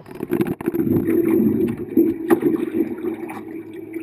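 Boat engine running steadily with a low hum, with a few sharp knocks over it.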